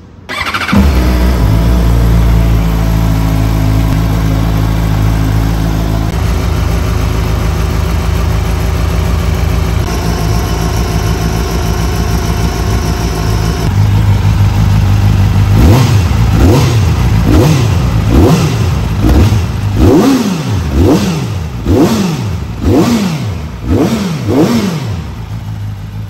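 Kove 450RR's 443cc inline-four engine starting up about half a second in and idling steadily, then revved in a rapid series of short throttle blips, each rising and falling in pitch, before settling back toward idle near the end.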